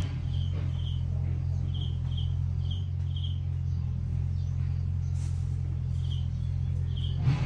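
Insect chirping at a high pitch, about two short chirps a second with a pause in the middle, over a steady low hum; a brief knock near the end.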